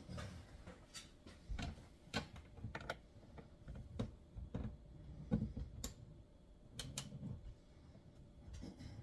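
Scattered, irregular light clicks and knocks of hands handling small parts: the new shark fin antenna being set on the roof and its cable fed through the mounting hole.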